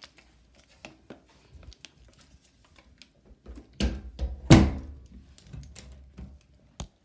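Handling noise from a handheld camera with a plastic water bottle held right against it: scattered light clicks, then two heavy thumps about four and four and a half seconds in.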